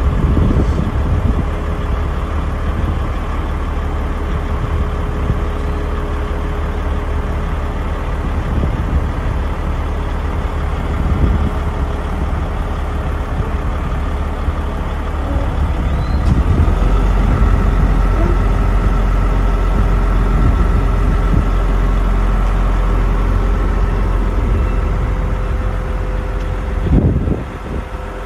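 Truck engine running steadily, driving the hydraulics of a Fassi F660 knuckle-boom crane as its folded boom is raised, with a steady hydraulic whine over the low engine rumble. A little past halfway it grows louder and a higher whine joins in, and there is a short thump near the end.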